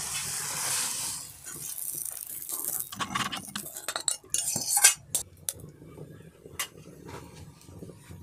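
Metal spatula scraping and clinking against a metal kadai as a thick curry is dished out: a short hiss in the first second, then a run of sharp clinks and scrapes, the loudest about five seconds in.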